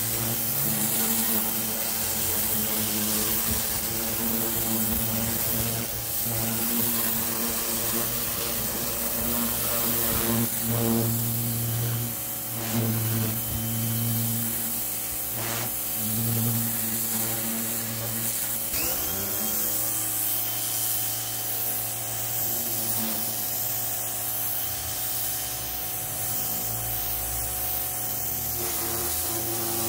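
Parkside PHD 170 D2 electric pressure washer running steadily: its pump motor hums under the hiss of the water jet spraying onto stone steps. About two-thirds of the way through, the motor's pitch sweeps up once.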